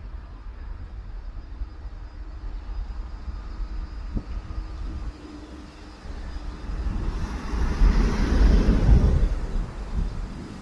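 Jet engines of a Boeing 737-800 (CFM56 turbofans) running during a takeoff, a low rumble under wind buffeting the microphone. The sound swells louder about seven seconds in.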